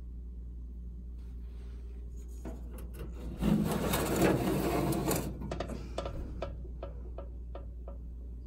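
Vintage Coroaire WM-90 furnace running with a steady low hum. About two and a half seconds in, a louder rushing noise swells for a couple of seconds, then gives way to a run of quick ticks, about three or four a second, that fade away.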